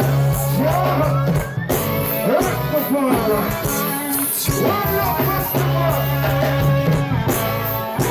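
Live reggae band playing, with a steady, repeating bass line and guitar, and voices singing over it.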